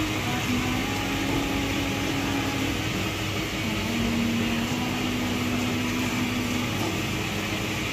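Steady mechanical hum and hiss, with a low drawn-out tone that drops slightly in pitch about three and a half seconds in.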